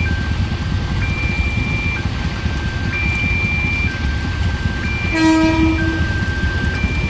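Railway level-crossing warning alarm sounding two alternating electronic tones, a higher and a lower one, each held about a second. A little past five seconds in, a train horn gives one short blast, all over a steady low rumble.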